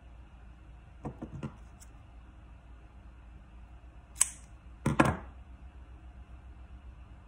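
Scissors snipping through waxed braided kumihimo cord: two short sharp cuts about four and five seconds in, the second louder, with a few light handling clicks about a second in.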